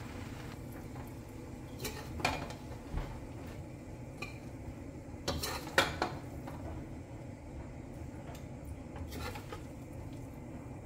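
Metal tongs knocking and scraping against a wok while stir-fried rice noodles are tossed: a few scattered clatters, the loudest a short cluster near the middle, over a steady low background noise.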